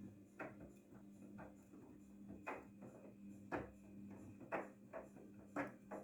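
Daewoo DWD-FT1013 washing machine running a cotton wash: a steady motor hum with a soft knock about once a second as the drum turns.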